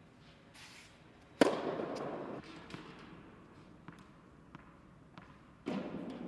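A tennis serve: the racket strikes the ball once, about a second and a half in, with a sharp pop that rings on in the big indoor court hall. A few light taps follow later, the ball being bounced on the court before the next serve.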